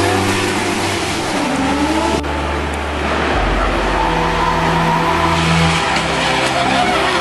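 Drift cars' engines running hard at high revs, their note shifting up and down, as one car pulls away from the bend and the next approaches.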